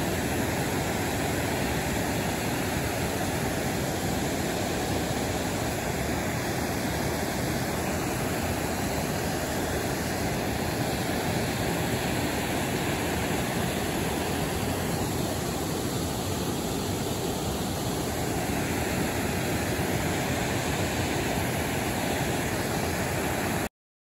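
Water rushing steadily over a low, wide stepped-stone waterfall on a creek. The sound cuts off abruptly just before the end.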